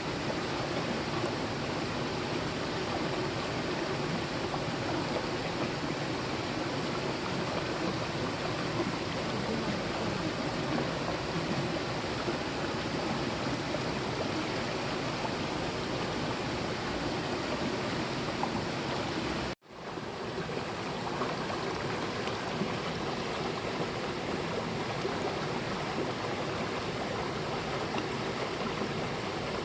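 Mountain valley stream rushing steadily over rocks. About two-thirds of the way through, the sound cuts out abruptly for an instant at an edit and comes back quickly.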